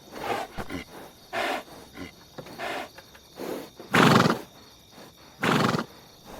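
A horse making a series of short, noisy calls, roughly one a second, the two loudest about four and five and a half seconds in.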